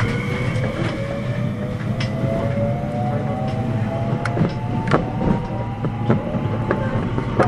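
Inside a JR 521 series electric train's motor car: the Mitsubishi IGBT VVVF inverter and traction motors whine in several tones that rise slowly in pitch as the train gathers speed, over the low rumble of running on the rails. A few sharp clacks come from the running gear along the way.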